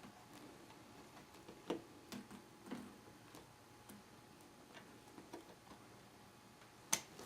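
Faint, irregular small clicks and ticks of a small screwdriver driving a tiny screw back into a laptop's screen frame, with a sharper click near the end.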